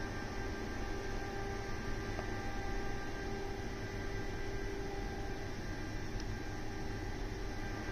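Steady electrical hum of running lab instruments, a few even tones over a low rumble and faint hiss.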